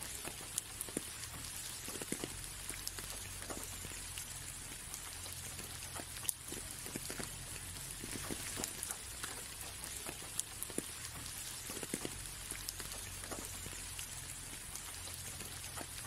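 Light rain on a window: many separate drops tick and tap irregularly on the glass over a steady soft hiss, with a low steady hum underneath.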